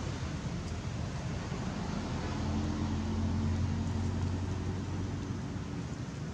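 Steady outdoor background hiss with a motor vehicle's engine hum that swells in about two seconds in and fades out after about five seconds.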